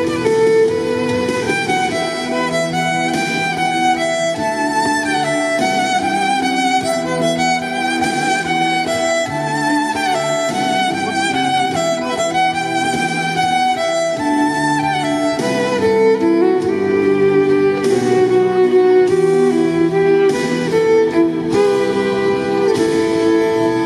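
Violin playing a melody with vibrato over a recorded backing accompaniment from a loudspeaker.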